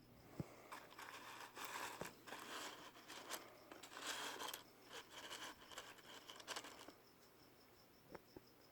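Crinkling and rustling from something being handled, with a few light clicks, fading out about seven seconds in. A faint cricket chirps steadily throughout, plainest once the rustling stops.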